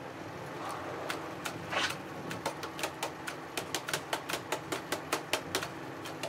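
Rapid light tapping on a motorcycle's front brake hydraulics, about four sharp taps a second starting a second or so in, to vibrate trapped air bubbles up to the master cylinder while the brakes are being bled.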